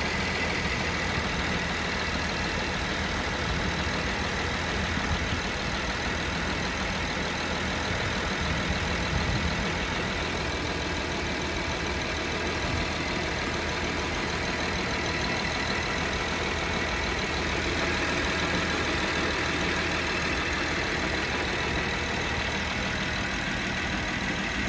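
Volkswagen Touareg's 3.6 FSI VR6 petrol engine idling steadily while cold, with the knocking it makes on a cold engine.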